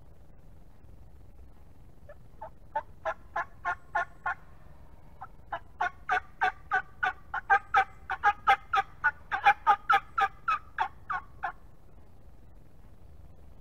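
Turkey yelping: a short run of about seven evenly spaced yelps, a brief pause, then a longer, louder run of about twenty yelps at three to four a second.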